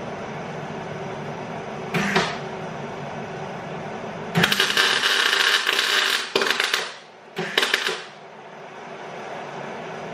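MIG welder arc crackling in short bursts while a nut is welded onto a seized bolt. There is a brief burst about two seconds in, a longer one of nearly two seconds just past the middle, then two shorter ones, all over a steady low hum.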